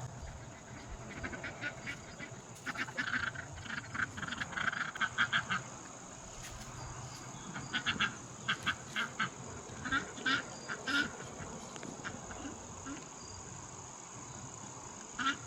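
Ducks quacking in several quick runs of short calls, with pauses between the runs.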